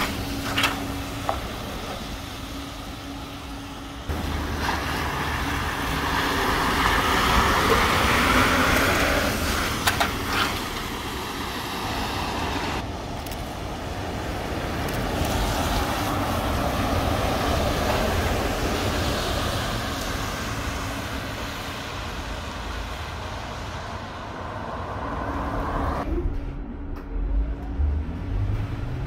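Ride noise heard from inside a Solaris Trollino 18 trolleybus in motion: a steady rumble and hiss of the electric drive and the tyres that swells and fades with speed, with a few sharp knocks near the start and around ten seconds in.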